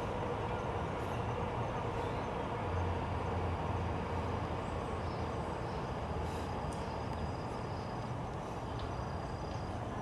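Steady outdoor background noise with a low rumble, heaviest around three seconds in, and a faint thin high tone in the second half.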